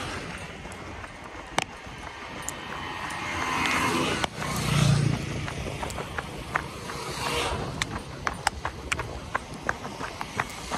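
Road vehicles passing on a highway, each a rush that swells and fades, one with a low engine hum about halfway through. From about six seconds in, a steady run of crunching footsteps on a gravelly dirt shoulder.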